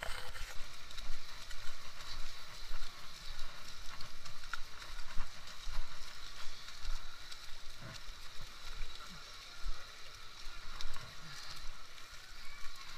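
Footsteps of a group walking on a dirt trail, with uneven rumbling on a handheld camera's microphone and faint voices now and then.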